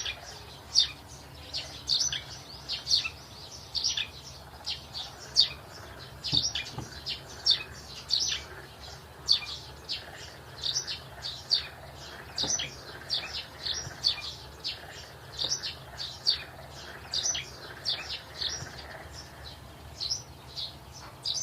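Small birds chirping: short, high chirps repeated a few times a second, irregularly.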